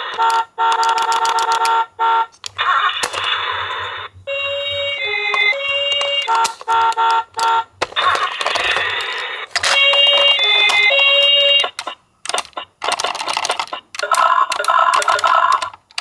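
Electronic siren and sound effects from a battery-operated toy ambulance, played through its small speaker in short bursts with brief gaps, including a two-tone alternating siren pattern twice.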